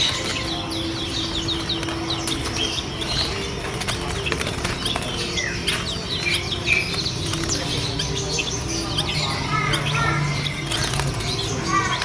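A dense chorus of caged birds chirping and calling, many short high notes overlapping, with wings fluttering among a cage of zebra doves.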